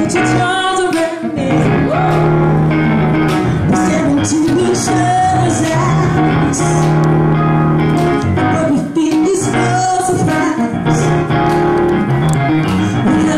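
A woman singing live into a handheld microphone over held electric keyboard chords, her voice sliding and wavering through sustained notes rather than clear words.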